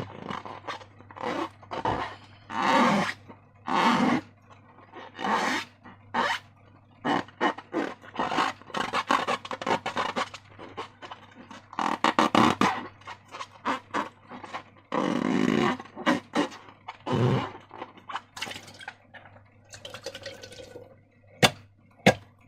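Slime being squished and worked by hand with rubber balloons: irregular wet squelches, sticky crackles and rubbery squeaks, with a few sharp clicks.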